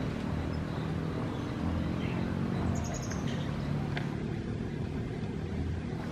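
A steady low engine hum runs throughout, with a few faint high-pitched chirps and a light click around the middle.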